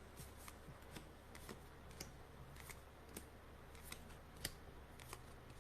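Faint, irregular clicks and light taps of trading cards being handled and flipped through one at a time.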